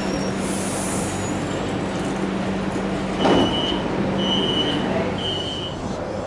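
Línea Mitre CSR electric train at the platform with a steady low hum. A short hiss comes about three seconds in, followed by three short high beeps about a second apart.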